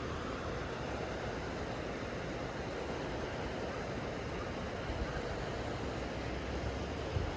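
Steady rushing noise, with two faint low bumps about five seconds in and near the end.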